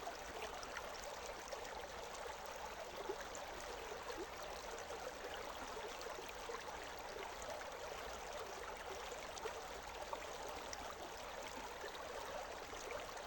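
Steady rushing and splashing of a forest stream flowing over rocks, with small gurgles and splashes flickering through a continuous wash of water noise.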